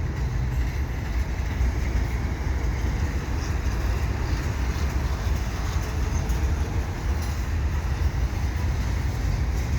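Freight train rolling past: a steady low rumble of railcar wheels on the rails.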